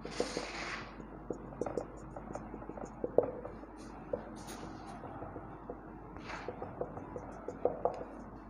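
Whiteboard marker tapping and dabbing on a whiteboard: many quick taps and short strokes as dots and dashes are drawn, with a few longer scratchy strokes, the first right at the start.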